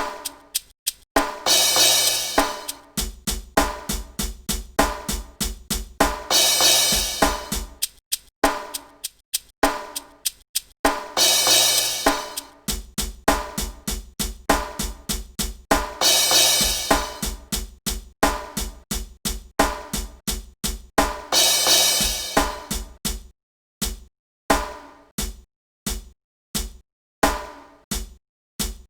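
Drum kit playing a repeating hip-hop groove of kick, snare and hi-hat, with a cymbal crash about every five seconds. About 23 seconds in the groove thins to sparser single hits with short silences between.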